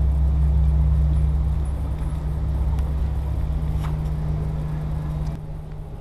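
Steady low rumble of city street traffic, dropping to a quieter outdoor background about five seconds in.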